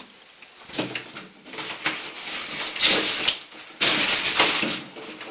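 Cardboard box and packaging being opened and handled by hand: irregular bursts of rustling and scraping, loudest about three to four and a half seconds in.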